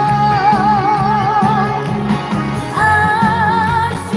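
Live trot song: a woman's voice holds long notes with a wide vibrato over a backing track with a steady beat, with a short gap about two seconds in before the next long note.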